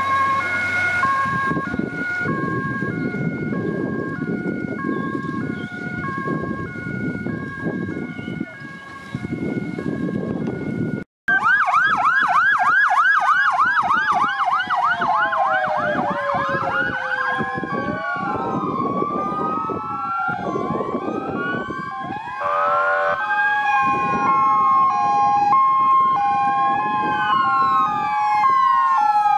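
Fire brigade vans driving off with sirens on. At first a single two-tone siren alternates steadily between two notes over engine noise; after a cut about 11 s in, several sirens sound at once, wailing up and down over a two-tone siren.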